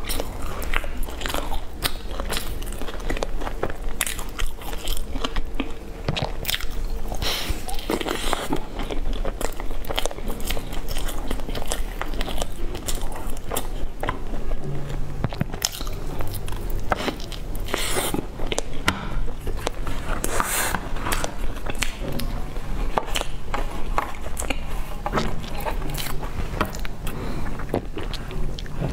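Close-miked biting and chewing of a crispy fried bun coated in meat floss and seaweed, with a soft cheese filling: the crust crunches and crackles between wet mouth sounds, in a steady run of irregular bites and chews.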